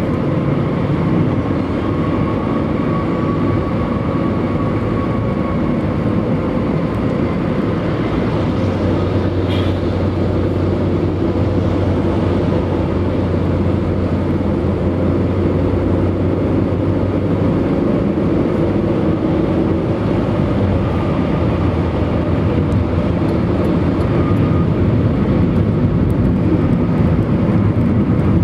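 Stock Bridgestone Turanza tyres on a Mitsubishi Lancer 9 whistling against the road surface at highway speed, a steady rushing drone with a faint whistle, like an airplane, that comes and goes over it.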